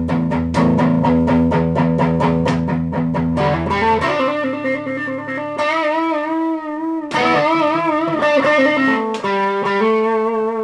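Electric guitar played through a Boss Katana 100 MK2 amplifier on its solo boost setting, with a distorted tone. A fast riff of rapidly repeated low picked notes for about four seconds gives way to held lead notes with wide vibrato.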